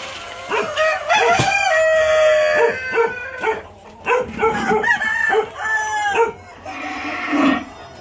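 A flock of native chickens calling, several at once. A rooster crows with one long call about a second and a half in, and short clucks repeat over the next few seconds.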